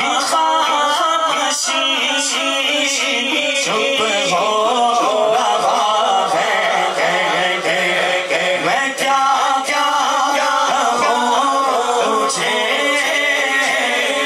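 A man singing a naat, an Urdu devotional poem, in long drawn-out notes with the pitch sliding and turning.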